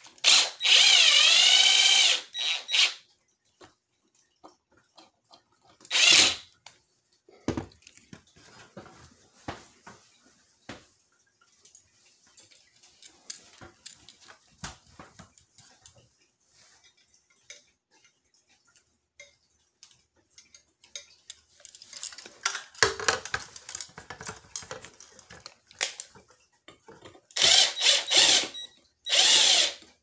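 Cordless drill driving screws into a ceiling fan mounting bracket: a long run over the first three seconds with the motor pitch dipping under load and recovering, a short burst around six seconds in, and two more bursts near the end. Small clicks and rattles of parts being handled in between.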